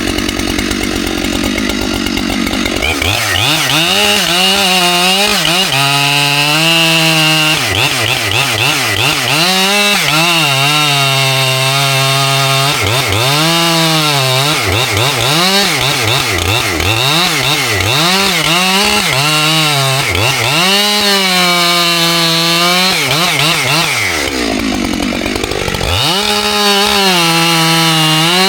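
Husqvarna 592XP two-stroke chainsaw running at high revs while cutting into a large poplar trunk, its pitch sagging and recovering about once a second as the chain bites and clears. Near the end it drops low for a moment and revs back up.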